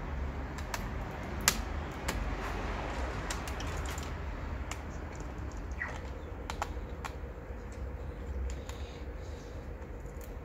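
Irregular small clicks and taps of hard plastic and metal parts being handled inside an opened laptop, over a steady low hum.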